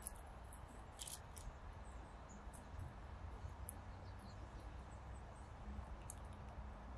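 Faint woodland ambience: a steady low rumble of wind, with scattered short, high-pitched calls of small birds, the clearest about a second in.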